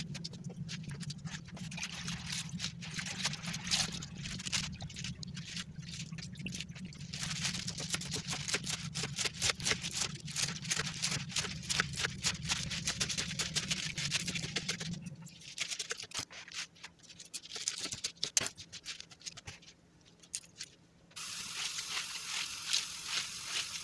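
Knife chopping fresh spinach on a wooden cutting board, quick cuts in runs, over a low steady hum for the first half. Near the end the chopping gives way to a steady hiss as the chopped spinach is moved into a bowl to be washed.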